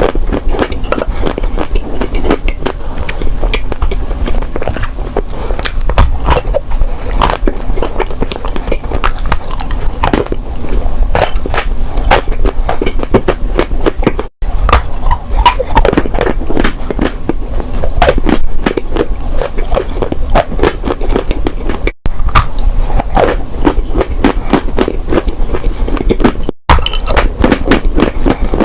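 Close-miked crunching of dry, brittle edible clay chunks: a dense, continuous run of sharp cracks, snaps and crumbles. It drops out for an instant three times, at cuts.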